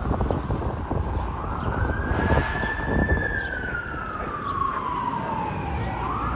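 Fire truck siren wailing over city traffic: it rises to its high pitch, holds, then falls slowly over about four seconds before rising again near the end.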